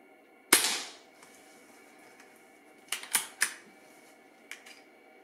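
Air Arms S510 Xtra .22 PCP air rifle firing one shot on low power: a single sharp report with a short ringing tail. About two and a half seconds later come three quick clicks as the side lever is worked to cock the rifle and index the magazine, then a light click near the end.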